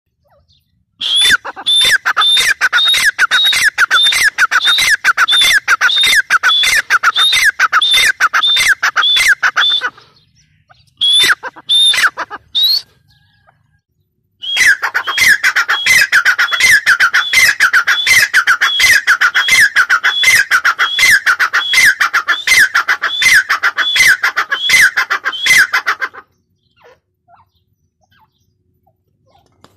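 Grey francolin calling: a loud, fast run of sharp, evenly repeated notes, each falling in pitch, in two long bouts with a short break between them.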